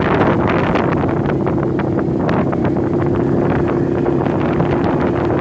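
ATV engine running at a steady pace with a constant drone, while wind buffets the microphone. Frequent short clicks and rattles come through as the quad rides over the bumpy dirt trail.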